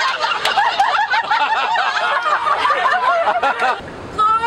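A group of people laughing, many voices giggling over one another at once. The laughter dies down near the end and a woman starts singing.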